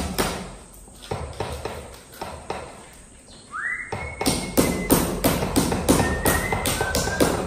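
Hammer striking a chisel to chip the cement top of a concrete kitchen island down to level, in quick blows about three a second that ease to lighter taps for a couple of seconds, then pick up again. A high whistling note rises and holds about halfway through, with shorter ones near the end.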